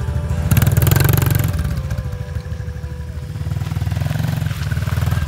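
Small Honda 100cc dirt bike's single-cylinder four-stroke engine running at low speed, getting briefly louder and rougher about half a second in before settling back to a steady putter.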